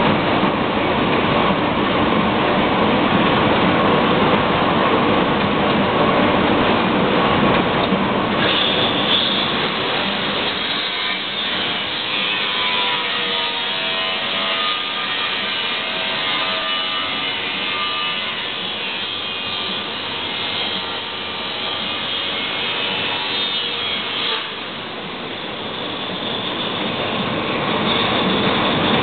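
Heidelberg Speedmaster 72 V four-colour sheetfed offset press running: a loud, steady mechanical clatter and whir that dips slightly about 24 seconds in.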